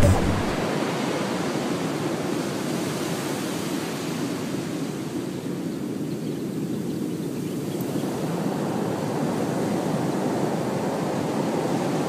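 Ocean surf: a steady rush of breaking waves with no distinct individual crashes.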